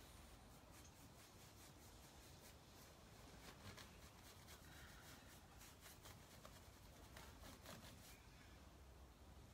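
Faint, irregular scratching of a paintbrush scrubbing clay paint into a dresser's surface during wet blending.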